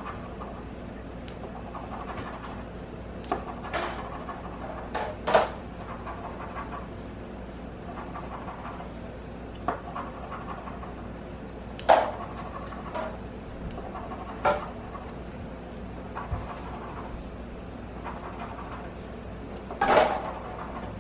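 Scratch-off lottery ticket being scratched: many short scraping strokes, with a few louder, sharper scrapes about 5, 12, 14 and 20 seconds in.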